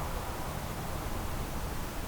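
Steady low hiss and rumble of background noise, with no distinct sound event.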